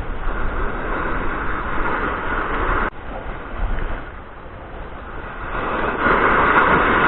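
Surf breaking and washing up the beach, with wind noise underneath; the surf swells louder about six seconds in as a big wave comes in.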